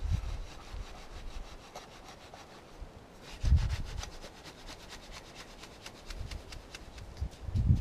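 Quick, rhythmic scraping strokes of a rod worked up and down in wet concrete inside a cardboard sonotube form, with a dull thump about three and a half seconds in and another near the end.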